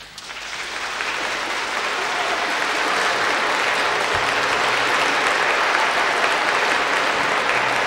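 Concert-hall audience applauding, the clapping building up over the first two seconds and then holding steady.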